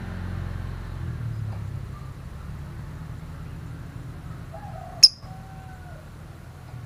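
Fischer's lovebird giving one short, sharp high chirp about five seconds in, over a steady low background hum.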